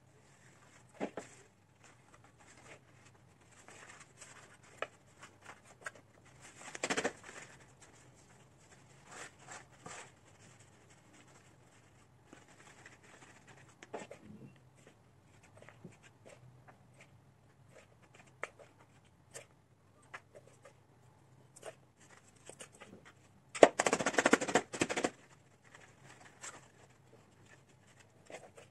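Small rustles, taps and scrapes of hands handling a plant pot, roots and potting soil during repotting, with a louder scraping rush lasting a second or two near the end.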